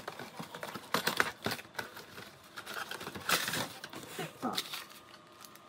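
Cardboard box of a Shimano Deore bicycle cassette being opened, with rustling and scattered light clicks as the box flaps and the metal cassette sprockets are handled.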